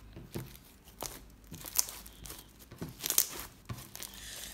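Purple slime with small pink beads mixed in, squeezed and stretched by hand. It makes a string of sharp, short crackling pops, about six in all, spaced unevenly.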